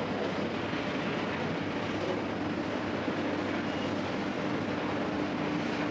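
Bakery machinery running: a steady mechanical noise with a constant low hum.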